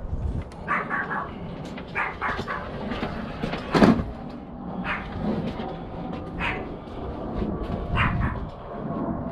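A dog barking repeatedly, short barks every second or two, with one loud sharp knock about four seconds in.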